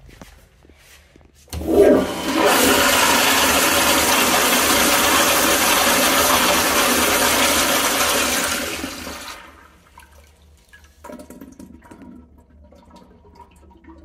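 Flushometer-valve toilet (Kohler Highcliff Ultra) flushing: the valve opens with a sudden loud rush about a second and a half in, water rushes steadily through the bowl for about seven seconds, then fades out. Quieter water sounds follow near the end.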